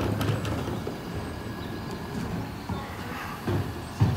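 Mercedes-Benz Econic bin lorry running at the kerb while wheelie bins are wheeled up and lifted at the rear, with scattered knocks. Near the end there is a loud bang as the electric lifter tips a green bin into the hopper.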